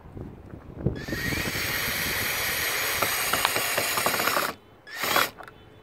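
Cordless drill with a Phillips screwdriver bit driving a screw through a plastic solar-light base into a wooden railing. The motor runs for about three and a half seconds, stops, then gives one short burst near the end.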